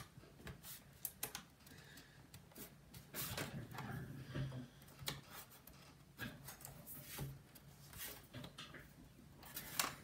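Faint, irregular clicks, taps and scraping of fingers and plastic as hands press on a laptop's plastic underside and work a hard drive back into its bay.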